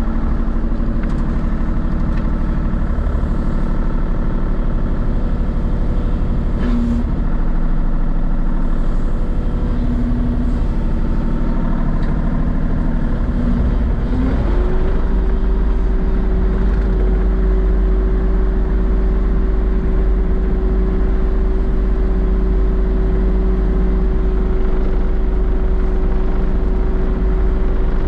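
Kubota KX033-4 mini excavator's three-cylinder diesel engine running steadily while the machine swings and moves its arm. About halfway through, the engine speed rises quickly and holds at a higher, steady pitch.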